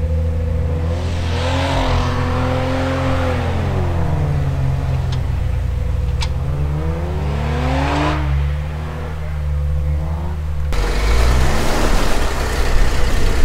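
Jeep Wrangler engines on a snowy trail: one idles steadily close by while another revs up twice, its pitch rising and falling each time. Near the end the sound cuts to a louder, rougher engine with a hissing noise over it.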